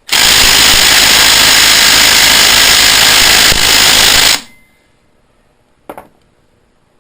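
Impact wrench hammering on a tight nut for about four seconds, cutting off abruptly; the nut does not break loose. A single short click follows near the end.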